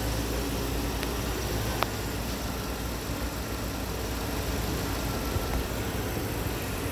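2000 Jaguar S-Type's 4.0-litre V8 idling steadily, with two light clicks about a second and two seconds in.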